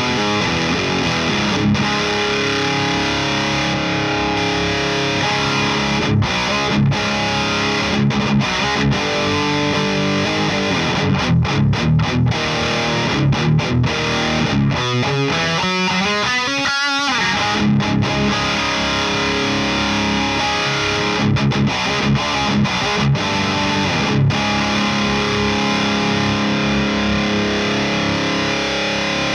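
Distorted electric guitar played through a Friedman Runt 50 amp with a boost pedal in front, riffing with short stops between phrases. About 15 seconds in a note slides upward, then cuts off briefly before the riffing resumes.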